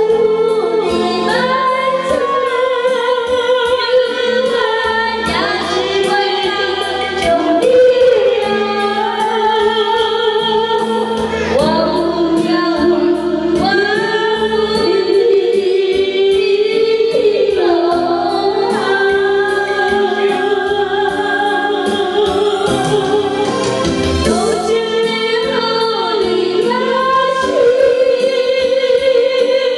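Music: a woman singing a melody with vibrato over a steady beat.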